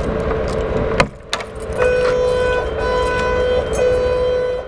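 A steady hum, then one sharp click about a second in as the padlock on a metal door is opened. After that, background music with long held notes.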